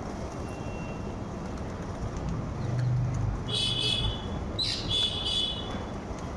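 Birds calling: two short, high calls about a second apart, with a quick sweeping note between them, over a steady background rumble.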